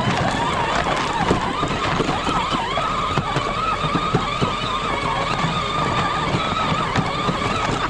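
Electric drive motors of a child's ride-on toy Jeep whining as it drives, rising in pitch as it gets up to speed and then holding fairly steady, over many small clicks and knocks.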